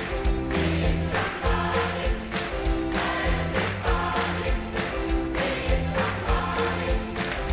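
Gospel choir singing with a live band of drums, bass and keyboards: an upbeat song over a steady beat with sustained bass notes and held chords.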